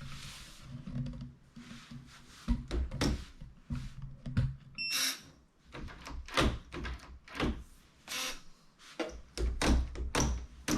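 Irregular knocks, clicks and thuds from objects being handled, with a brief high-pitched ring about five seconds in.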